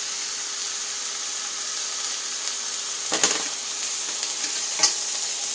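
Bologna and bread frying in melted butter in a pan, a steady sizzle. Two short, louder sounds come about three and five seconds in.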